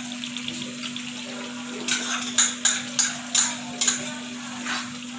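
Metal spoon scraping and tapping against a small ceramic bowl as curd is scooped out into a pan. A quick run of sharp scrapes and taps over about two seconds, then a softer one near the end, over a steady low hum.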